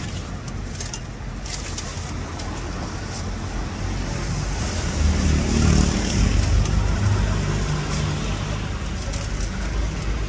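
A motor vehicle's engine rumbling past on the street, loudest about halfway through and slowly fading, over steady traffic noise with a few light clicks.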